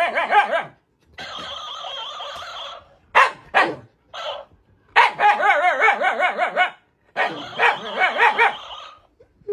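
A dog vocalising in a series of long, wavering, whining howls, with a few short yips in the middle.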